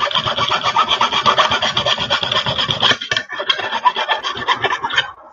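Rapid back-and-forth scraping of a flat metal blade or file along the rim of a pressure-cooker lid, trueing up its dented, poked-at edge. It is brief, with a short pause about three seconds in.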